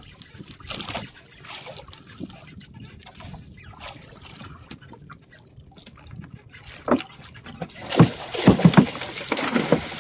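Water sloshing against a small outrigger boat's hull with scattered small knocks as a handline is hauled in. About seven seconds in, loud splashing and thuds start: a hooked Spanish mackerel (tanigi) is thrashing at the surface beside the boat and being gaffed.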